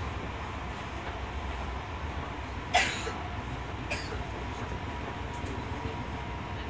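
Tokyo Metro 10000 series train running at speed, heard from inside the car: a steady rumble with a faint steady tone, and a sharp clack from the wheels about three seconds in, with a smaller one a second later.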